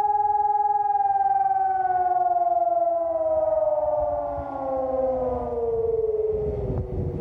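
Civil-defence siren sounding its test signal: a steady tone that, about a second in, starts to wind down, its pitch falling slowly until it fades out. A low rumble rises near the end.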